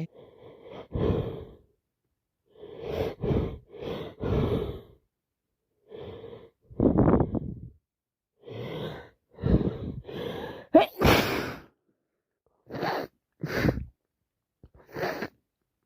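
A woman's hay-fever sneezing fit: a run of hitching, gasping in-breaths as a sneeze builds, then a sharp sneeze about eleven seconds in, the loudest sound, followed by a few short breaths.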